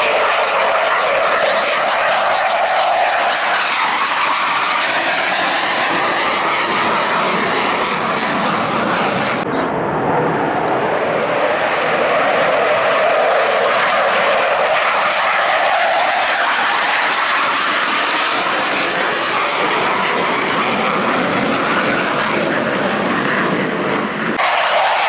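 Loud, steady jet noise from a pair of CF-18 Hornet fighters, twin-engine jets, flying passes over the field. The pitch wavers as they pass, with sudden breaks about nine and a half and twenty-four seconds in.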